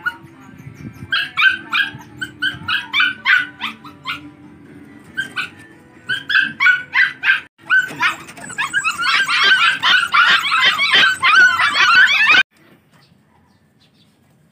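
Two-month-old Belgian Malinois puppies yipping in short, high-pitched barks, a few at a time at first, then many together in a dense chorus of yelps that cuts off suddenly a couple of seconds before the end.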